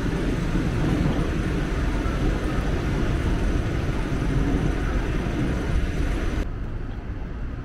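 Steady rumble and hiss of a moving vehicle, heaviest in the bass, dropping suddenly to a quieter low rumble about six and a half seconds in.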